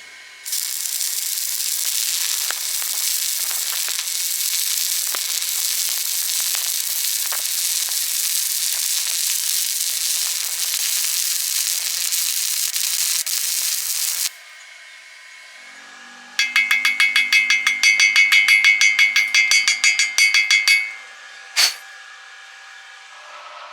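Stick-welding arc crackling and hissing steadily for about fourteen seconds, then cutting off abruptly. After a pause comes a few seconds of rapid metallic tapping with a ringing tone, then a single sharp click.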